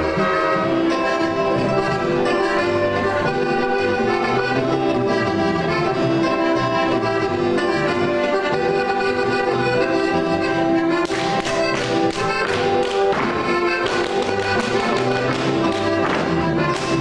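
Alpine folk dance tune played on accordion. From about eleven seconds in, Schuhplattler dancers join in with quick, sharp hand slaps on their thighs and shoe soles, in time with the music.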